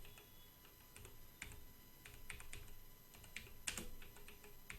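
Faint typing on a computer keyboard, an irregular run of key clicks as a file name is typed in.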